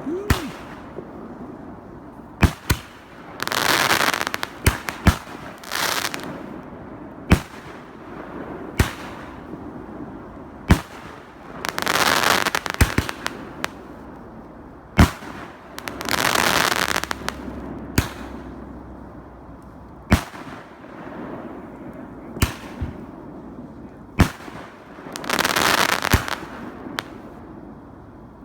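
Fireworks going off: sharp bangs every second or two at irregular intervals, with four longer noisy bursts about a second long.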